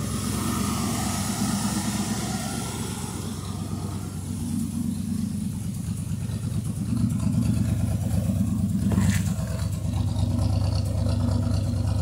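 Ford pickup's engine idling steadily after a cold start, a low rumble that grows louder about seven seconds in. There is one short click about nine seconds in.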